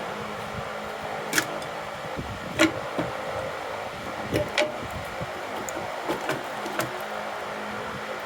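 Scattered light metallic clinks and knocks from hand tools working on a Ford small-block V8 while its lower intake manifold is taken off, over a steady low hum.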